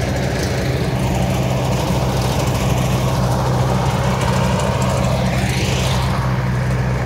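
Tractor diesel engine running steadily, driving a Gobind super seeder working through paddy stubble: an even low hum with no change in pace.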